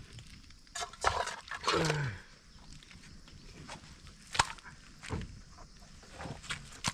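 A short animal call that falls in pitch about two seconds in, among a few scattered sharp knocks and clicks.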